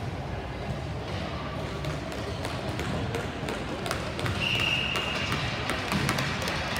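Ball hockey play: sticks and the plastic ball clacking and knocking on the rink surface in quick irregular hits, over distant player voices. A brief steady high tone sounds a little past the middle.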